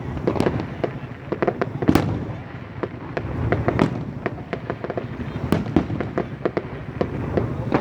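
Fireworks display going off: a dense run of sharp bangs and crackles, several a second, over a steady low rumble, with one of the loudest bangs about two seconds in.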